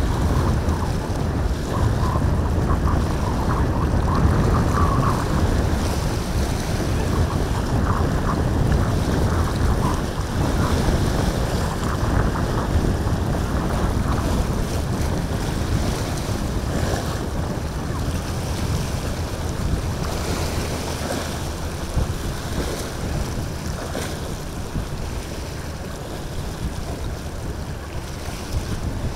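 Wind buffeting the microphone over the rush of rough surf and breaking waves at an ocean inlet, a steady rumbling noise that eases slightly near the end.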